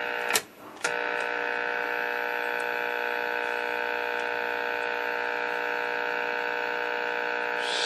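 A steady, harmonic-rich buzz from the Westinghouse H-196 television's speaker. It cuts out briefly about half a second in, with a click either side. This is the signal generator's 1 kHz FM test tone coming through the set's sound circuit far from clean, which the restorer puts down to an IF alignment that is off and audio stages not yet recapped.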